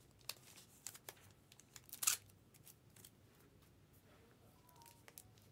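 Faint handling sounds of trading-card cases and packaging on a tabletop: scattered light clicks and taps, with a brief scrape or rustle about two seconds in.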